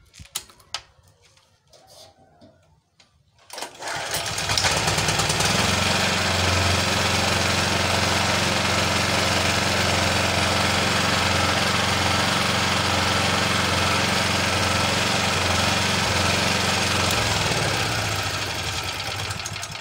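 Sumec Firman SPG2900E2 petrol generator's GX160-type single-cylinder four-stroke engine starting up about three and a half seconds in, then running steadily. The generator is running but giving no voltage.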